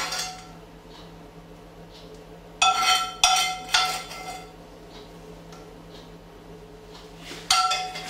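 Metal spoon clinking and scraping against a frying pan as sauce is spooned out of it. Sharp ringing clinks come once at the start, three in quick succession about three seconds in, and again near the end.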